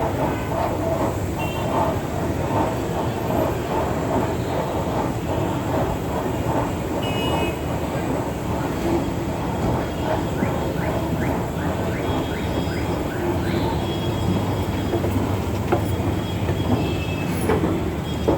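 Train running along a station platform: steady rolling rail noise with brief high wheel squeals now and then, amid the general hubbub of a busy railway station.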